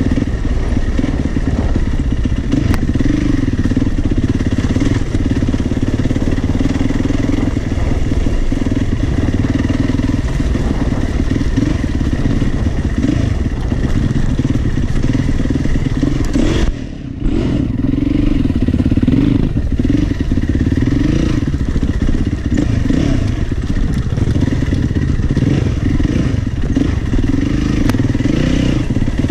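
Yamaha YZ450F single-cylinder four-stroke dirt bike engine running under load while being ridden off-road. The revs rise and fall with the throttle, and the sound drops off sharply for a moment just past halfway before picking up again.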